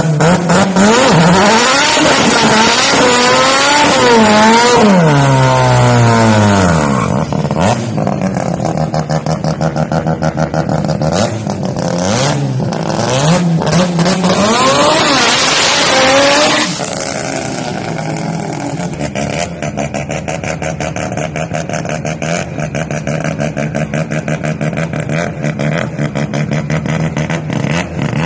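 A Mazda RX-7's turbocharged rotary engine revs high during a tyre-smoking burnout, its pitch swinging up and down, with a second hard burst of revving about twelve seconds in. From about seventeen seconds on it drops to a lower, rapidly pulsing, choppy running sound.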